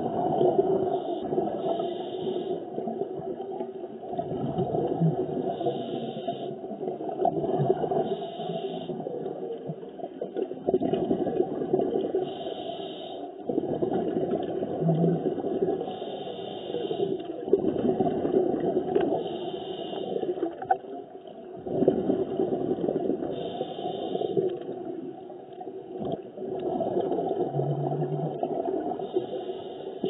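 Muffled underwater sound picked up by a submerged camera: a steady gurgling rush of water and bubbles that swells and eases every few seconds.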